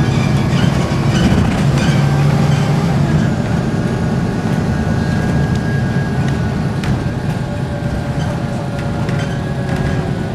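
Volvo B7RLE bus running on the road: diesel engine and ZF automatic driveline rumble with a steady whining, groaning tone over it. The rumble is strongest for the first few seconds, then eases off as the bus slows. The uploader is unsure of the groan's cause and thinks it may be an engine belt.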